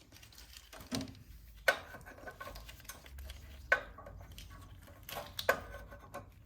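Hand tools and small metal engine parts clinking and tapping during snowblower carburetor reassembly: about five sharp knocks, a couple with a brief metallic ring, spread irregularly over a few seconds.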